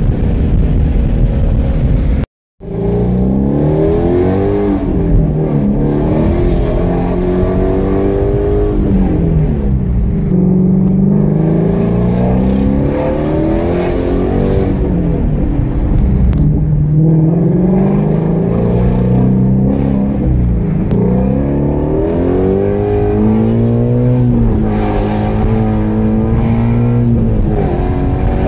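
Shelby GT350's 5.2-litre flat-plane-crank V8 exhaust heard from inside the cabin while driving. After a brief dropout about two seconds in, the engine accelerates through the gears, its note rising and then dropping at each shift, several times over.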